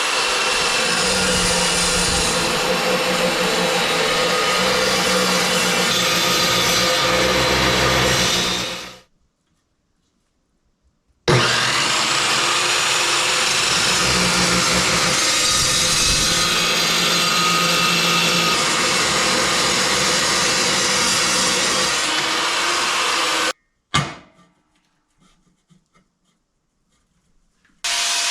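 Power saw cutting metal lengths, a loud steady noise. It winds down about nine seconds in, starts again about two seconds later, and cuts off abruptly after about twenty-three seconds, followed by a sharp click; it starts up again near the end.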